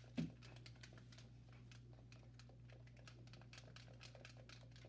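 Faint, irregular plastic clicking of Super Nintendo and Nintendo 64 controllers being handled and their buttons pressed, with one brief low knock just after the start.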